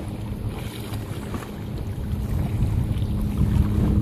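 Wind buffeting the microphone at the water's edge, a gusty low rumble that grows louder toward the end, with a faint steady engine drone underneath.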